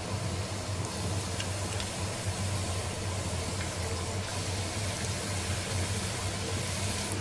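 Hot oil sizzling in a kadhai as gujiyas are slid in and start to deep-fry, over a steady low hum.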